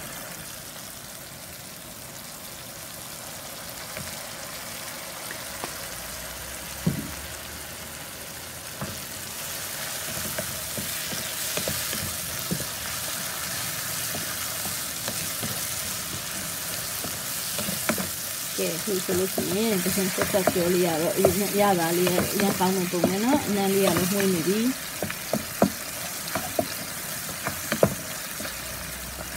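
Shrimp sizzling in hot chili oil in a nonstick wok while a wooden spatula stirs and scrapes them; the frying grows louder about a third of the way in. A person's voice is heard for several seconds past the middle.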